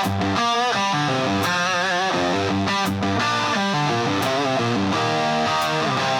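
Instrumental break in a rock song: an electric guitar plays a lead line with bent, wavering notes over a steady guitar backing, with no vocals.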